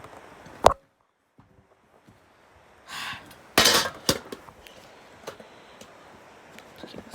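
Small objects being handled: a sharp knock, then a second or two of almost nothing, then rustling and a run of light clicks and knocks.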